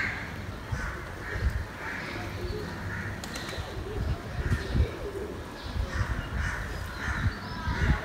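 Street birds calling: crows cawing repeatedly, with pigeons cooing, over an intermittent low rumble on the microphone.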